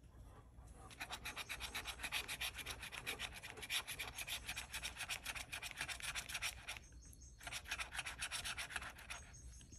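Scratch-off lottery ticket's latex coating being scraped off with a small tool: rapid, rhythmic back-and-forth scraping strokes, pausing briefly about seven seconds in before a second run.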